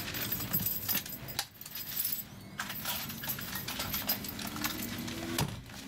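Inside an Sm5 (Stadler FLIRT) electric commuter train moving slowly through a station: light metallic clicks and rattles over a steady low running hum, with a motor tone rising slightly in pitch near the end as the train gathers speed.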